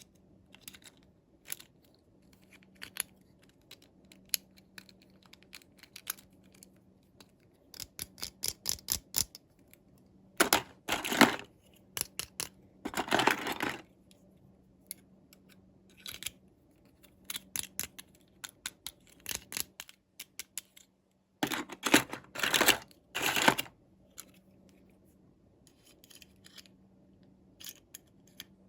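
Toy packaging being handled and opened: scattered light clicks and taps, with louder bursts of tearing and rustling about a third of the way in, again a couple of seconds later, and in a cluster about three-quarters of the way through.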